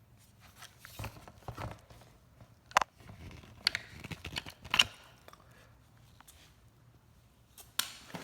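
Handling noises from pressure washer gear being put away: a series of short clicks, knocks and scrapes, the sharpest about three seconds and five seconds in, with another near the end.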